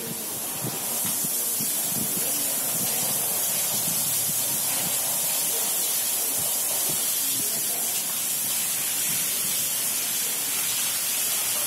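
Heavy downpour: a dense, steady hiss of rain pouring down onto the stone steps of an underpass stairway, with irregular splashing underneath. It swells over the first second, then holds steady.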